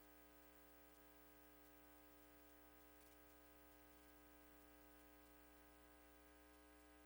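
Near silence: a faint steady electrical hum and hiss from the broadcast feed.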